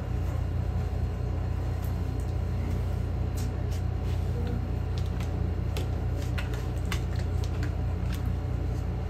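A steady low room hum, with faint scattered clicks and ticks as playing cards are picked one by one from a deck fanned out on a cloth-covered table.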